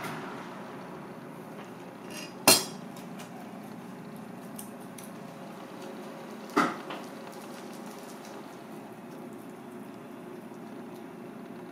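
Two sharp clacks of kitchen utensils on a plastic cutting board, the louder about two and a half seconds in and a second about four seconds later, with a few faint ticks between, over steady background hiss.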